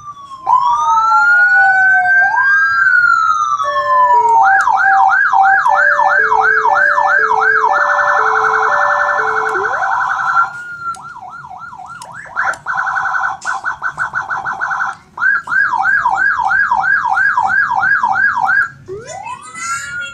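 Electronic emergency siren through a horn speaker, cycling its tones: a slow wail rising and falling, then a fast yelp of about three sweeps a second with a two-note hi-lo tone sounding over it at the same time, then a rapid warble and pulsing tone, yelp again, and a new wail rising near the end.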